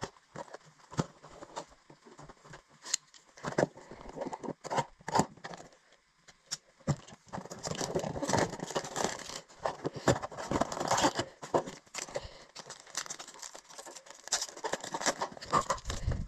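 A cardboard hockey-card blaster box being handled and torn open by hand: scattered taps and clicks at first, then denser tearing and rustling from about halfway as the card packs are pulled out.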